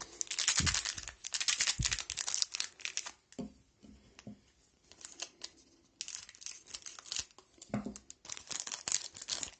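Foil trading-card pack wrapper crinkling as it is handled and torn open, in two bursts of rustling: one over the first three seconds, another near the end.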